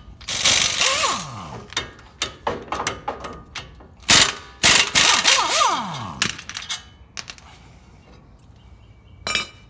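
Impact wrench with a 19 mm socket hammering loose the two brake caliper mounting bracket bolts: two bursts of rapid impacts, each ending in a falling whine as the motor winds down. Metal clicks come between them, with a short clatter of metal parts near the end.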